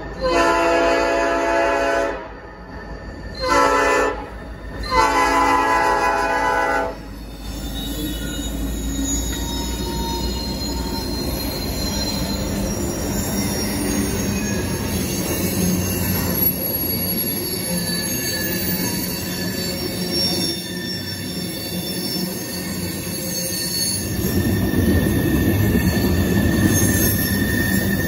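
A CN SD70M-2's Nathan P5 five-chime air horn sounds a long blast, a short one and a final long one, the close of a grade-crossing signal. Then the diesel freight passes close by: locomotive engines and steady rolling of the cars, with wheels squealing.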